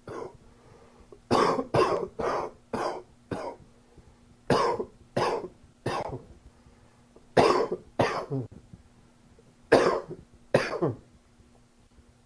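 A man coughing from a summer cold, in four fits of several sharp coughs each with short pauses between them.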